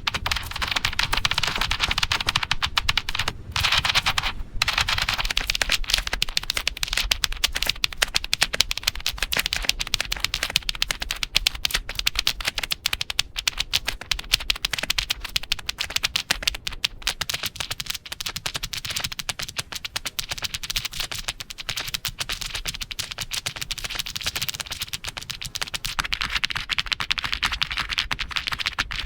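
Rapid typing on a computer keyboard: a dense, continuous stream of key clicks.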